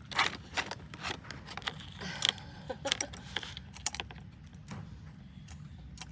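Asian water monitor biting down on whole eggs, the shells cracking and crunching in its jaws: a string of irregular sharp cracks, busiest in the first four seconds and thinning out after.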